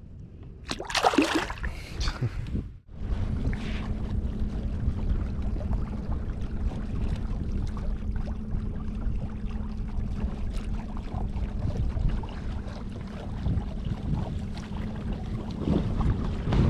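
Kayak out on the water: a short loud burst of noise about a second in, then steady wind and water noise with a constant low hum.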